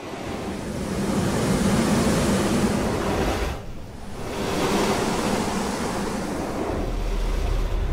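Roar of rushing water surging through underground stone ducts, swelling up, dipping briefly about three and a half seconds in, then swelling again, with a deep low rumble coming in near the end.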